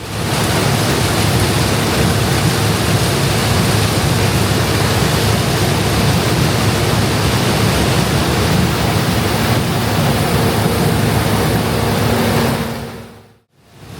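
International Harvester 1460 combine running under load while harvesting corn: a loud, steady mechanical din with a low hum underneath. It fades out near the end.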